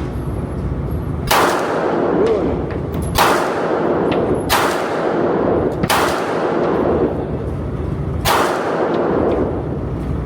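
Five handgun shots fired one at a time, one to two seconds apart with a longer pause before the last, each followed by a short ringing tail.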